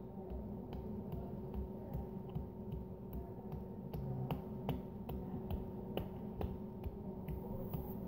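Hands slapping a person's cheeks over and over, light sharp slaps at a steady pace of about two or three a second.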